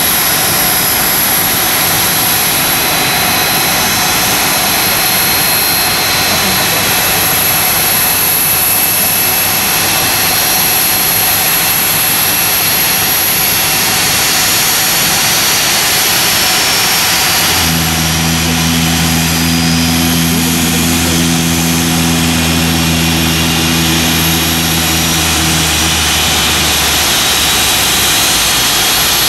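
Gulfstream business jet's twin rear-mounted turbofan engines running at idle on the ramp: a steady rushing whine with a thin high tone over it. A lower steady hum joins about two-thirds of the way through and stops shortly before the end.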